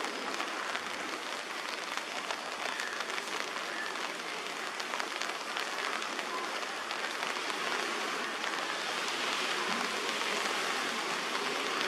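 Steady patter of light rain: a fine, even hiss dotted with many small drop ticks, growing a little louder in the second half.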